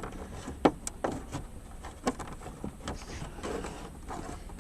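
Plastic dashboard trim of a 1995 Plymouth Voyager being worked loose and handled: irregular sharp clicks and knocks, a few of them louder taps.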